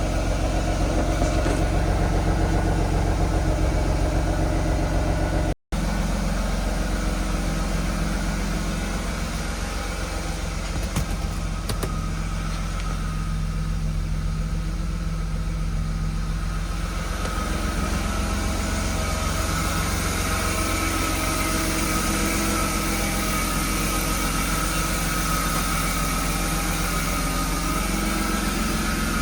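BMW M52B25 2.5-litre straight-six idling steadily, with one momentary cut in the sound about five seconds in.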